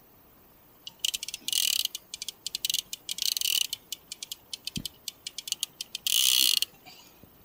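Conventional fishing reel clicking in rapid trains, with three longer buzzing runs, while a big fish pulls against the line on a heavily bent boat rod.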